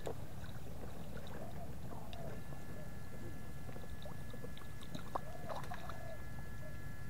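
Water sloshing and splashing with small clicks over a steady low rumble, and a thin steady high whine coming in about two seconds in.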